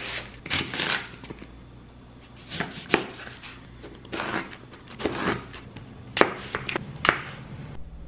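Chef's knife cutting through an onion and lemons on a cutting board: a run of separate chops and slices, each knife stroke ending in a knock on the board, at an uneven pace.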